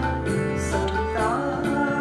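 A man singing a Hindi devotional bhajan in long held, gliding phrases, accompanying himself on a harmonium that sustains steady reed notes beneath the voice.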